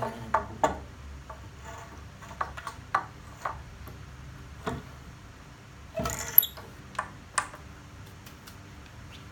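Handling of the drill and the wood being set up for drilling: about a dozen sharp, irregularly spaced clicks and knocks, the loudest about six seconds in, with no drill motor running.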